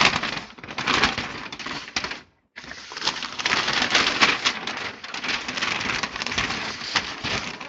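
Packing paper crinkling and rustling as it is handled and crumpled, a dense run of crackles and small clicks. The sound cuts out completely for a moment a little over two seconds in.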